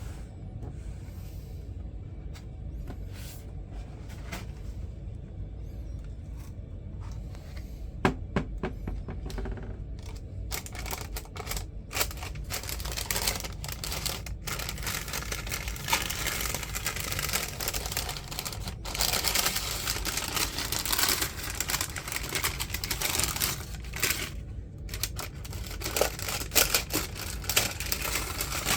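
Hands handling a sneaker box and its packaging: scattered clicks and taps, then dense rustling and crinkling with many sharp clicks from about ten seconds in, over a steady low hum.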